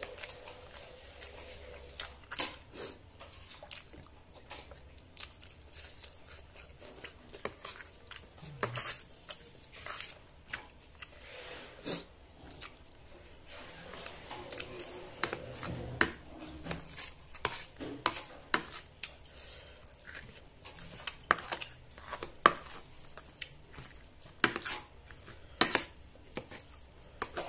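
Metal cutlery clicking and scraping against a plastic plate at irregular intervals while food is picked up, with chewing between the clicks.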